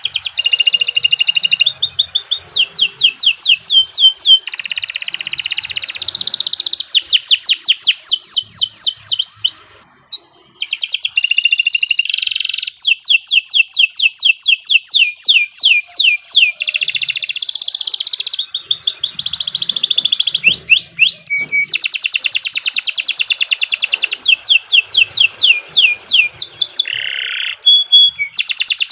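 Domestic canary singing a long, loud song of rapid trills, fast runs of repeated sweeping notes changing from phrase to phrase, with one brief pause about ten seconds in.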